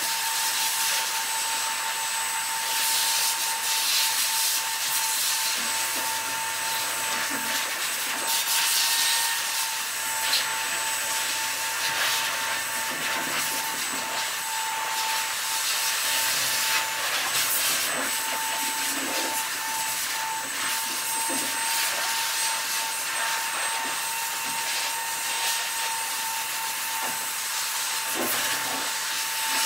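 Steady hiss and high whine of an electric blower motor running without a break.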